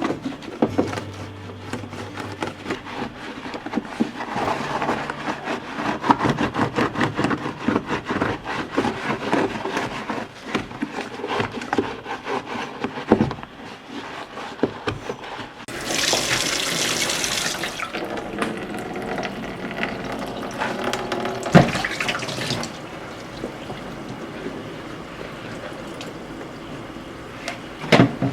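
Water running and splashing, with frequent clinks and clatter of things being handled; a harder gush of running water sets in about sixteen seconds in and lasts about two seconds.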